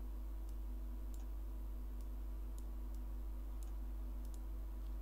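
Faint, irregular computer mouse clicks, about seven of them, over a steady low electrical hum.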